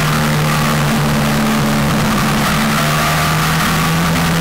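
Mazda MX-5 four-cylinder engine of a Locost-style race car, heard onboard, pulling at fairly steady revs through a corner. Wind and road noise run underneath.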